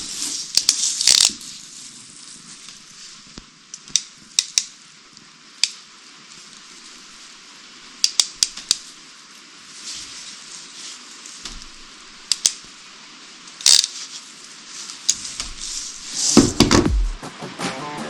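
Scattered sharp clicks and knocks of small hard objects being handled, over a steady hiss, with a louder burst of handling noise near the end.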